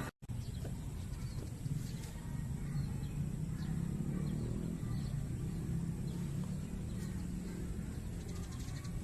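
Outdoor ambience: a steady low rumble with a few faint clicks and thin high chirps.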